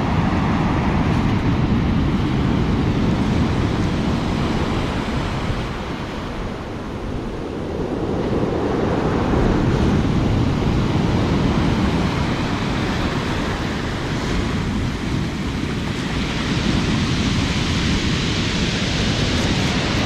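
Storm surf on the Black Sea breaking and washing up a pebble beach in a continuous rush of water and foam, with wind rumbling on the microphone. The surf eases a little partway through, then a hissing wash builds near the end.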